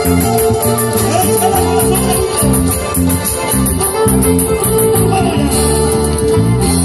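Live band music played loud through a stage PA: strummed and plucked mandolins and guitars over a bass line that steps from note to note in a steady rhythm.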